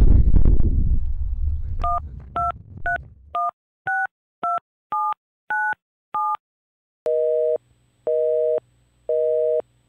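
Wind and road noise from the ride fades out in the first few seconds. A phone number is keyed in as about ten touch-tone beeps, each a short pair of tones. Then comes a busy signal: a two-tone beep pulsing about once a second.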